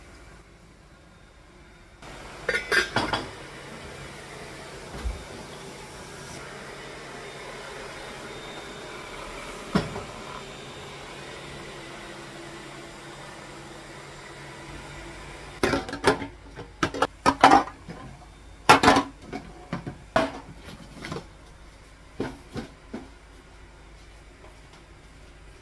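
A robot vacuum runs with a steady hum, opening with a quick cluster of sharp clicks. Then come a run of sharp clinks and knocks, like dishes and kitchen items being handled.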